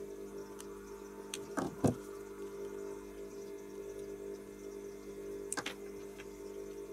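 Light clicks and taps from handling a small metal rotary encoder and tools on a silicone work mat: two knocks between one and a half and two seconds in, and another near the end, over a steady low hum.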